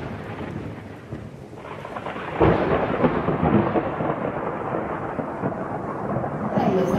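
Thunder-like rumble with rain-like rushing noise from an intro sound effect. It dips over the first two seconds, then swells suddenly about two and a half seconds in.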